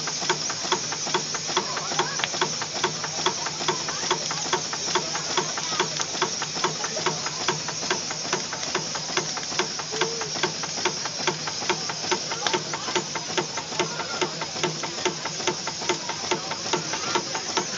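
Steam traction engine idling: a steady hiss of steam with an even knock about three times a second. The knock is put down to a rod bearing and is not thought to mean a bad bearing.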